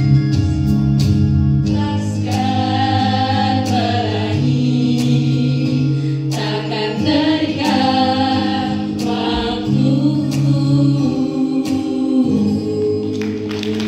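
A mixed group of young men and women singing a song together in chorus, with long held chords and the melody moving over them.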